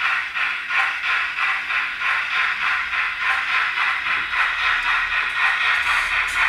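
Digital sound of a Hornby OO model 'Lord Nelson' steam locomotive, played through the model's small built-in speaker. It gives a rapid rhythm of exhaust chuffs recorded from the preserved 'Lord Nelson', eight beats to each turn of the driving wheels, and the beats run closer together later on.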